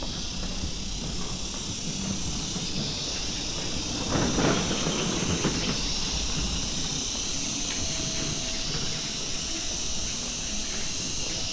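A chorus of cicadas buzzing steadily in a high, hissing band that swells and fades every few seconds. A brief, louder rush of noise passes about four seconds in.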